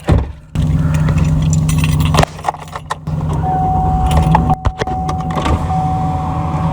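Pickup truck engine running, with keys jangling and small clicks and rattles. A single steady high tone comes in about halfway through and holds.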